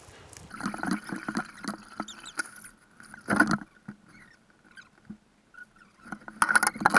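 Two people paddling a canoe: paddle strokes and drips in the water with scattered knocks of the paddles against the hull. The loudest knock comes about three seconds in, and a quick cluster of knocks comes near the end.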